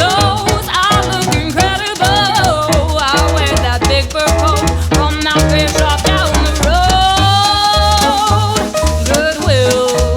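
Background pop music: a sung vocal over a steady bass beat with shaker-like percussion, the voice holding one long note about two-thirds of the way in.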